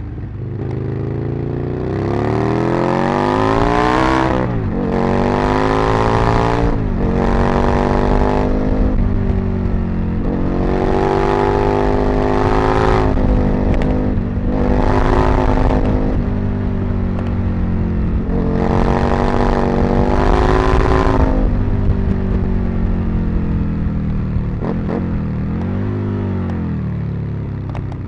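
Aprilia RSV Mille's V-twin engine under hard acceleration, its note climbing and dropping back again and again as the rider works through the gears and rolls on and off the throttle. It eases to a lower, steadier note near the end.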